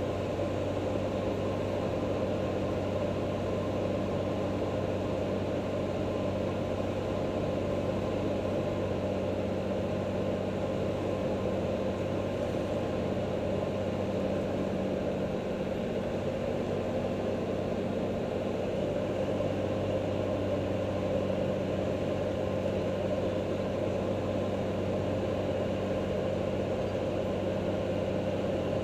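Cirrus single-engine piston aircraft's engine and propeller droning steadily inside the cabin, a constant low hum on the approach to land.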